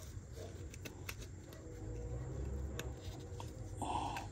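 Faint, scattered light clicks and scrapes of brake pads and their metal hardware clips being handled and fitted to the caliper bracket.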